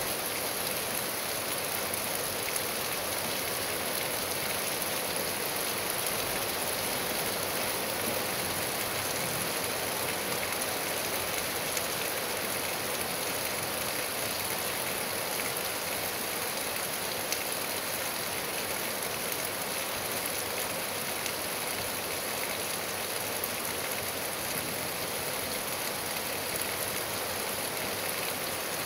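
Steady rain falling on trees and a lawn: an even hiss with no breaks.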